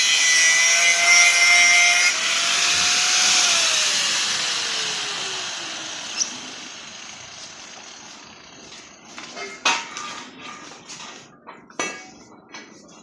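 Electric power saw cutting wood, then the motor winding down in a falling whine over several seconds. A few knocks follow near the end.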